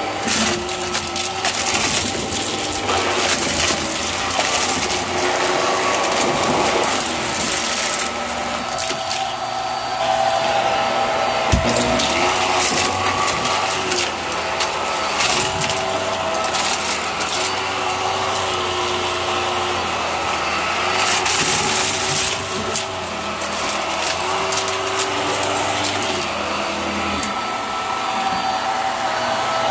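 Hart vacuum cleaner running steadily while it sucks up small beads and balloon debris, which click and rattle as they are pulled through the floor head into the canister.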